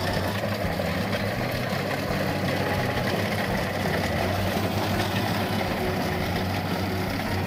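Small rice combine harvester's engine running steadily as it works through the rice field, a constant low hum with a mechanical rattle over it.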